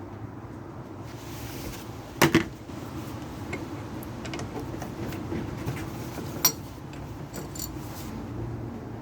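Metal clanks and knocks from handling metal struts or tools: a loud double knock about two seconds in, a sharp clink later, then a few lighter clicks, over a steady low hum.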